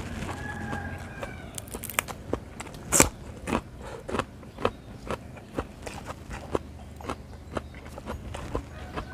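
A man chewing a mouthful of raw beef liver with his lips closed: soft wet smacks and clicks, about two a second, the loudest one about three seconds in.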